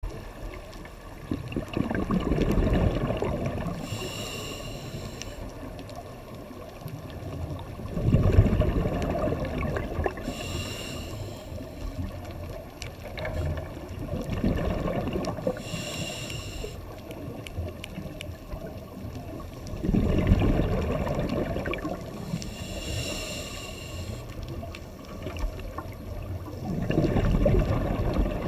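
A scuba diver breathing through a regulator underwater: a short hissing whine from the demand valve on each inhale, then a gurgling rush of exhaled bubbles on each exhale, repeating in a slow cycle.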